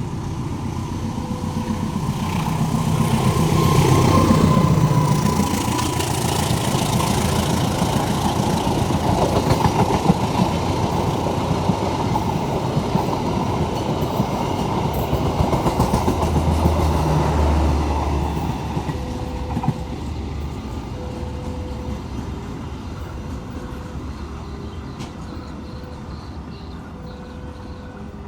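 CC 203 diesel-electric locomotive passing with a passenger train. Its engine note is loudest and drops in pitch about four to five seconds in as it goes by. The carriages follow with a rapid clatter of wheels over the rails, which fades away over the last ten seconds.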